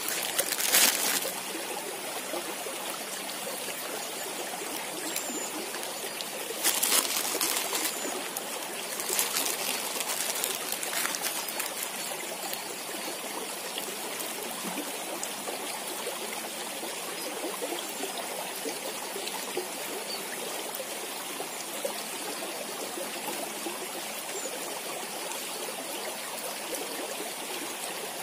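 Shallow stream of water trickling over stones, a steady flowing noise, with a few brief louder noises about a second in and again around seven to eleven seconds in.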